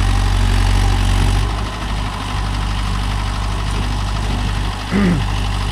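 Mahindra Yuvo Tech+ 585 4WD tractor's diesel engine running steadily while pulling a nine-tine cultivator through the soil. The engine note eases slightly about one and a half seconds in.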